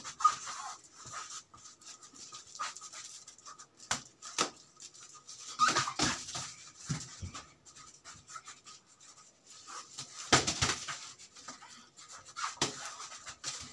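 Scattered sharp slaps and thumps of kicks hitting a handheld kick paddle, with feet landing on foam floor mats. The loudest come in clusters about six seconds in and again past ten seconds.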